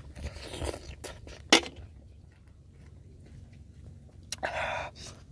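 Close-up eating sounds of raw shellfish being sucked from its half shell: a wet slurp in the first second, then two sharp clicks, the second the loudest sound, about a second and a half in. After that comes quiet chewing, and a short noisy burst near the end.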